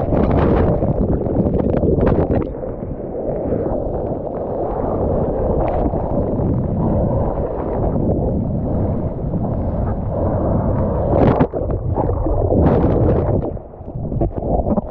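Strong wind buffeting the microphone, with water splashing and sloshing as a surfer moves through the sea.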